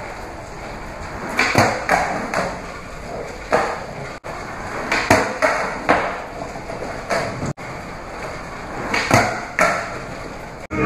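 Skateboard wheels rolling on a concrete floor with a steady rumble, broken by sharp clacks of the board hitting the ground, several of them coming in pairs about half a second apart.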